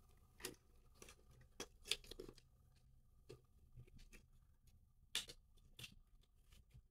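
Faint, scattered clicks and light taps from the small plastic parts of an open Nintendo Joy-Con being handled and fitted back together.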